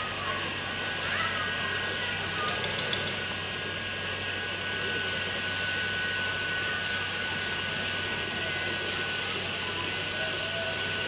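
Live-steam ride-on miniature steam locomotive running, its steam hissing with short bursts of exhaust every half second to a second or so.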